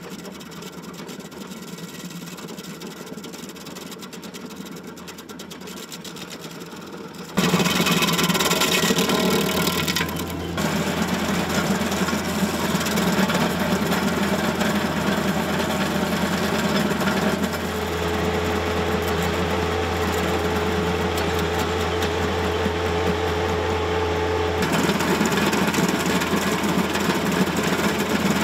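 Baumalight 1P24 PTO stump grinder's cutting wheel chewing into a wood stump, with the John Deere compact tractor's engine running under load. The sound is steady and jumps suddenly louder about seven seconds in.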